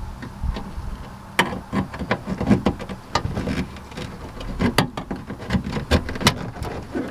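A plastic trim clip being pried out of the trunk carpet lining with an upholstery clip remover tool: a string of irregular clicks and knocks.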